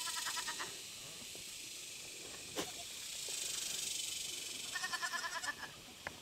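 Goats bleating: two short, quavering bleats, one at the very start and one about five seconds in, faint over a steady background hiss.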